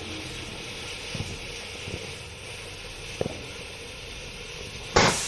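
Steady hiss with a few faint pops, then about five seconds in a sudden loud burst as a consumer firework goes off.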